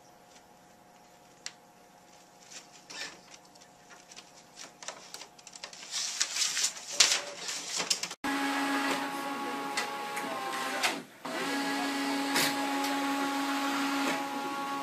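Inkjet printers at work. First comes a quiet stretch of faint clicks and paper rustling as printed sheets curl out of an HP all-in-one printer. Then a Canon all-in-one inkjet printer runs with a loud, steady mechanical whine and a short break partway through.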